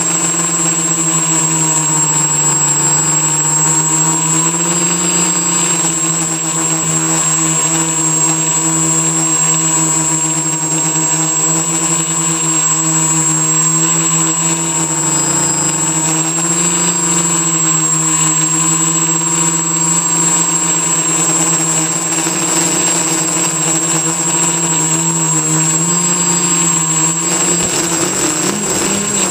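Quadcopter's brushless motors and propellers running steadily in flight, picked up close by a camera taped to the frame. The drone's pitch drifts slightly up and down as the throttle corrects, wavering more near the end.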